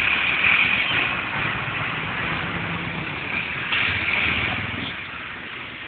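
Mercedes-Benz fire engine's diesel engine running as the truck drives slowly past and moves off, the sound fading toward the end.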